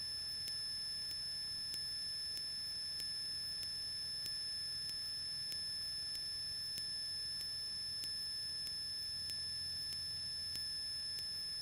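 Electrical noise on a light aircraft's intercom audio feed: a steady high-pitched whine made of several constant tones, with faint regular ticks about twice a second over a low hum.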